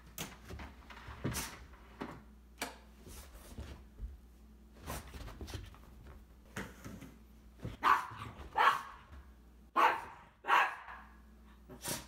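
Cavalier King Charles spaniel barking at a vacuum cleaner: a series of short, separate barks, louder and closer together in the second half.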